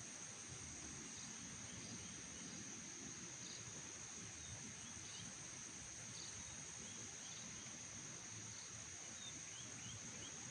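Faint outdoor ambience: a steady high-pitched insect drone with small, scattered chirps over a low background hiss.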